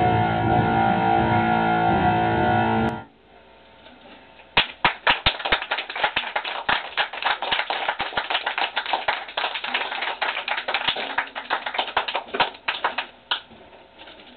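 Harsh noise music: a dense, sustained distorted drone cuts off abruptly about three seconds in, and after a short lull gives way to rapid, irregular crackling clicks that fade out near the end.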